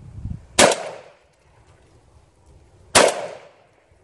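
Two shots from a Browning A-5 Light Twelve 12-gauge semi-automatic shotgun, about two and a half seconds apart, each a sharp crack that dies away within half a second.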